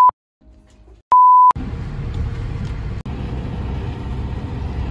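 Two short, loud electronic beeps of a single steady pitch, each about half a second long, the second about a second after the first; after them comes the steady low rumble of a car's cabin.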